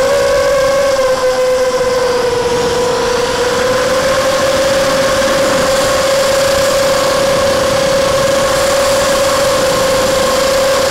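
Brushless motors and 5-inch propellers of a ZMR250 FPV miniquad whining in flight, as picked up by the onboard action camera. The pitch sags a little about a second in, then holds steady.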